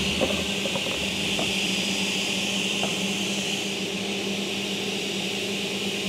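A woodworking machine running steadily: a constant hiss with a low hum under it, and a few faint ticks in the first three seconds.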